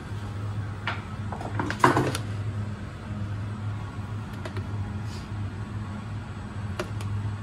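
A metal spoon clinking a few times against a saucepan and plate while sauce is spooned over ravioli, the loudest clinks about two seconds in. A steady low hum runs underneath.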